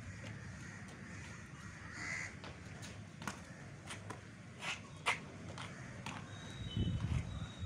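Crows cawing, several short harsh caws, the loudest a little past the middle, over a steady low rumble.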